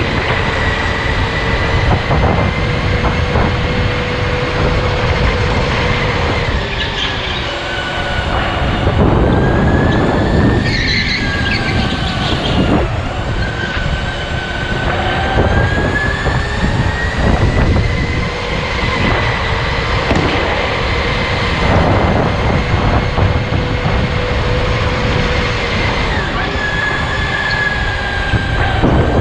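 Electric go-kart motor whining as it runs laps. The pitch falls and climbs again several times as the kart slows for corners and speeds up, over a steady low rumble.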